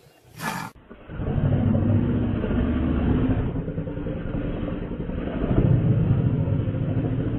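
Lionesses and a leopard growling at each other in a standoff, a continuous deep, rumbling growl that swells twice.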